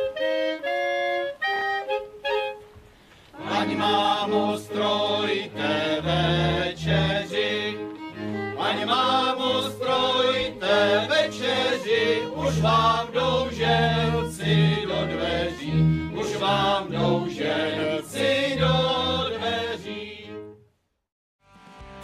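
A folk band of clarinets and violin plays a lively tune; after a brief break, a group of voices sings a folk song with the band and a bass line underneath. The music stops abruptly shortly before the end.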